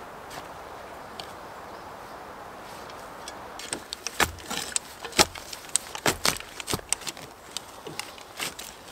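Small hand shovels digging into forest soil, their blades striking, chopping through roots and scraping dirt in irregular sharp knocks, several a second, beginning after about three and a half seconds of steady hiss.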